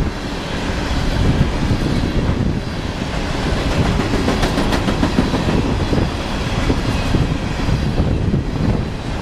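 A freight train's cars rolling past with a steady rumble and steel wheels clicking over the rail joints. There is no horn.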